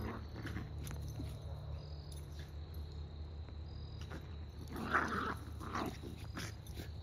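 Two miniature schnauzer puppies play-fighting, giving short dog vocal sounds, the loudest about five seconds in, over a steady low hum.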